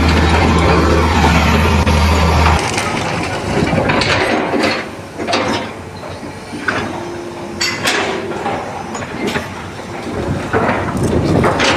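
Repeated cracking and crashing impacts, like wood splintering and breaking, with a low steady hum for the first two and a half seconds.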